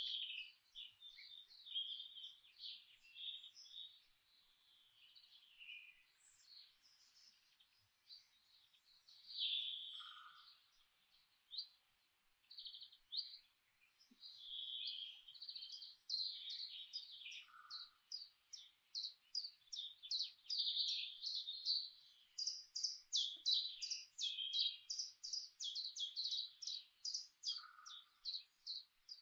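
Songbirds chirping and singing, a steady stream of short high notes and trills, with fast runs of repeated notes in the last third.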